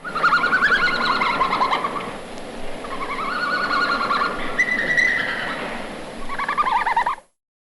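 Red panda calling: high, quickly pulsing twittering calls in several phrases, which stop about seven seconds in.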